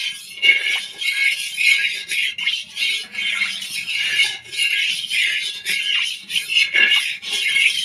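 Metal spatula scraping repeatedly around the inside of a metal kadai as it spreads warm mustard oil over the pan's sides, in quick back-and-forth strokes.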